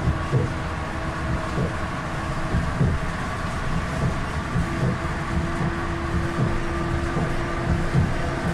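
Moving road or rail vehicle heard from inside the cabin: a steady low rumble with a steady whine and frequent irregular low thumps from the wheels. The whine drops out for a couple of seconds in the middle and comes back slightly higher.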